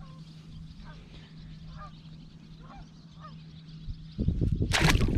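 Faint honking calls of distant geese, short and repeated about once a second, over a steady low hum; about four seconds in, a loud burst of noise drowns them out.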